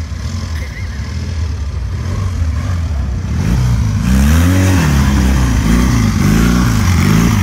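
Old British trials motorcycle engine running, growing louder a little past three seconds in, then revved up and down over and over, its pitch rising and falling about once or twice a second.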